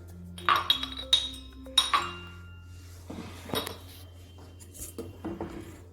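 A spoon clinking against a cooking vessel in several sharp, ringing taps as crushed green cardamom is added to the pan of carrot milk.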